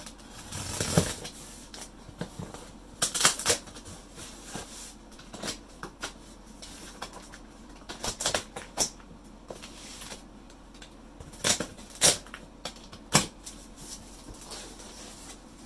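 Gift packaging being handled and opened: scattered rustles, clicks and a few sharper knocks.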